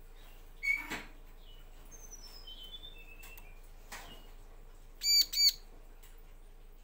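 Bar-winged prinia (ciblek) calling: a short sharp call about a second in, then a faint falling run of high thin notes. About five seconds in come two loud, ringing call notes in quick succession.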